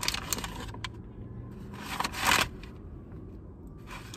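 Paper sandwich wrapper crinkling and rustling in the hands as a chicken sandwich is pulled out of it, in uneven crackly bursts with the loudest about two seconds in.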